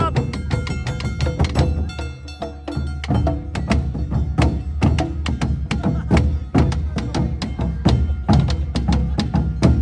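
Awa Odori festival band playing: drums and sharp struck beats in a fast, steady rhythm, with held melodic tones over them.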